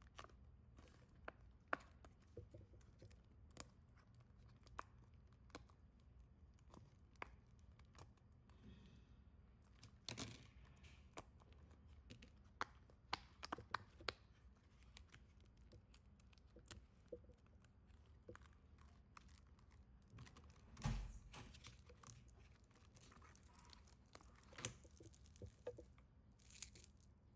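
Near silence, broken by faint scattered clicks and crinkling handling sounds, with one louder soft rustle about 21 seconds in.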